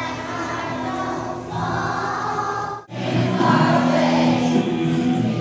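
Elementary school children's choir singing. The sound cuts out for an instant about three seconds in, then comes back louder.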